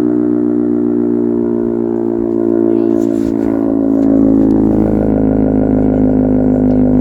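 Sentry 3V8-H electromechanical siren sounding loudly as several steady tones whose pitch slowly falls while it winds down.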